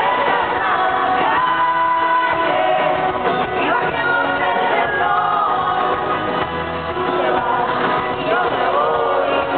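Live pop music with singing, played through a concert hall's sound system and recorded from among the audience, with the hall's reverberation.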